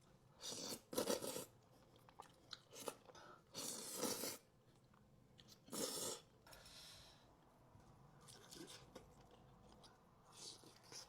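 Crunching and chewing of food close to the microphone, in several separate bites and chews, the loudest about one, four and six seconds in.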